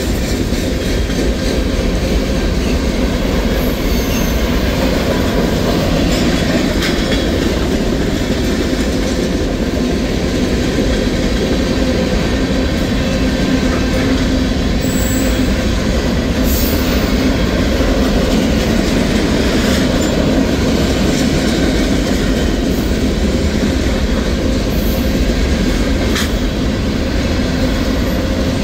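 Freight cars of a mixed manifest train rolling past at steady speed: a continuous rumble of steel wheels on rail with rhythmic clatter over the rail joints, and a few brief high squeals from the wheels.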